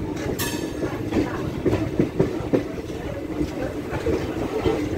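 Moving train heard from the open window of a DEMU running alongside an express: a steady rumble and rattle of wheels on the rails, with a run of sharp clacks in the middle.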